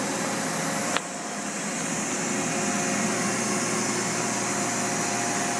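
Steady fan hum with a few faint steady tones underneath. A single sharp click about a second in, after which the hum dips briefly and comes back.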